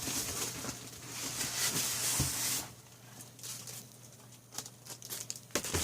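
Cardboard box and packaging rustling and scraping for about two and a half seconds as a PC case is pulled out. After that come a few light knocks and clicks of handling.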